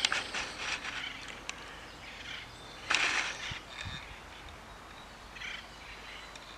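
Footsteps crunching on dry leaves and gravel in a few short bursts, the loudest about three seconds in.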